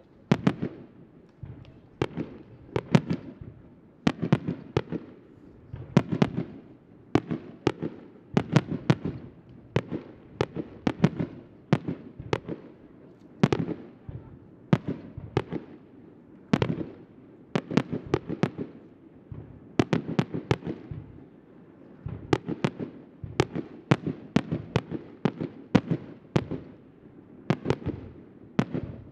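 Aerial firework shells bursting one after another, sharp bangs that come in quick clusters every second or two, each trailing off in an echoing rumble.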